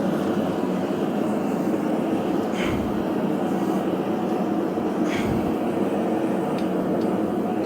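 Blacksmith's forge running with a steady roar and hum, with two faint clinks of metal partway through.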